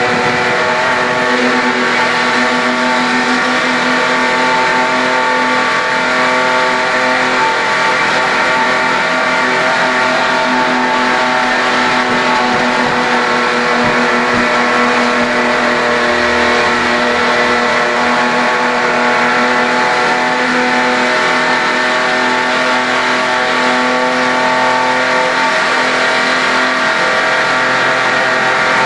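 HQ Holden race car's engine running at a steady, near-constant pitch under racing load, heard from inside the cabin.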